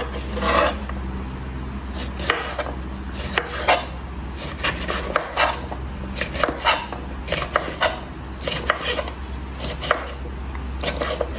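Kitchen knife dicing cucumber strips on a wooden cutting board: irregular sharp taps of the blade through the cucumber onto the board, about two a second.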